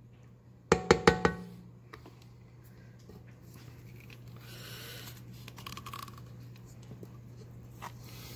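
A metal mixer beater is knocked against a stainless steel bowl about a second in, giving a quick run of sharp, ringing clinks. After that, a spatula scrapes soft butter around the inside of the bowl more quietly. A steady low hum runs underneath.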